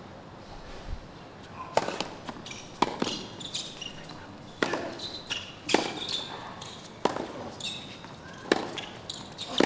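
Tennis rally: sharp, loud racket strikes on the ball roughly once a second, starting about two seconds in, with fainter ticks of the ball bouncing between them.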